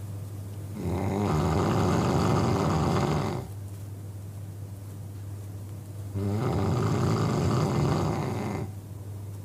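A man snoring: two long, loud snores, each about two and a half seconds, some five seconds apart, over a low steady hum.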